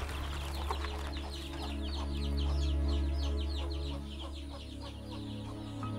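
Background score: a low sustained drone with long held notes that change pitch slowly, under rapid high chirping that fades towards the end.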